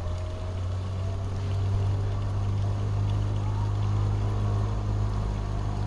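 A motor running with a steady low-pitched hum, getting slightly louder after about a second and a half.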